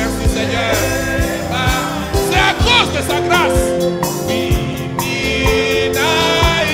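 Gospel worship music: a voice singing over instrumental accompaniment with sustained chords and regular drum hits.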